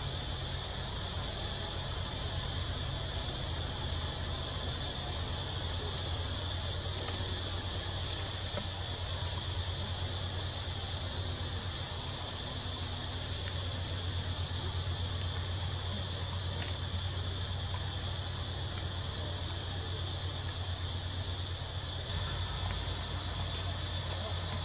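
A steady high-pitched insect chorus of crickets or cicadas, with a low steady hum underneath.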